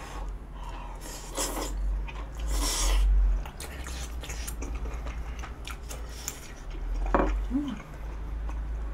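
Close-miked eating sounds: chewing of saucy tteokbokki rice cakes and chopsticks clicking against a bowl, with two louder wet noises in the first three seconds and a short voiced hum near the end.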